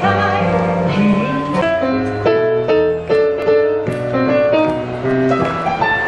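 Electronic keyboard played with a piano sound: a melody of struck notes over held low bass notes.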